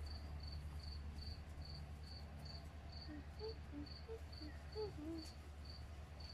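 A cricket chirping in a steady rhythm, about two or three high chirps a second, over a low background hum. A few faint short whistle-like notes come through in the middle.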